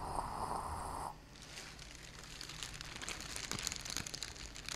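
Live radio-drama sound effects: a burst of hiss with faint steady high tones lasting about a second, then a continuous crackling full of small irregular clicks.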